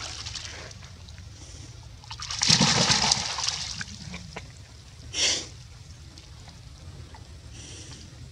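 Monkeys splashing in a shallow rocky stream: a loud splash about two seconds in, and a shorter splash about five seconds in.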